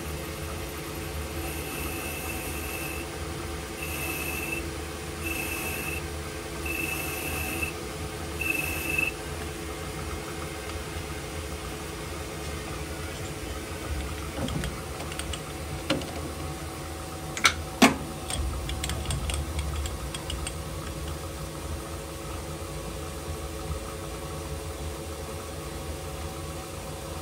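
Metal lathe running with a steady hum while a cutting tool works a spinning tungsten disc. A high squeal comes and goes five times in the first third. A little past halfway come a few sharp metallic clicks and knocks, two of them loud.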